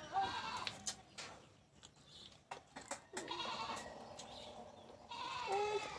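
A goat bleating about three times: drawn-out, wavering calls, with a few light clicks in between.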